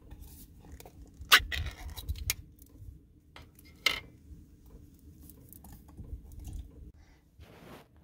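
Thick canned beef stew sliding and plopping out of a tin can into an enamel saucepan, with a few sharp knocks of the can, the loudest about a second in and another near four seconds.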